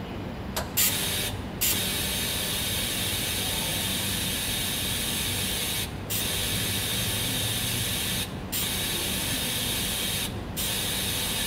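TIG (gas tungsten arc) welding arc on a 316 stainless steel tube: a steady high hiss that strikes up with a crack about a second in and breaks off for a moment four times.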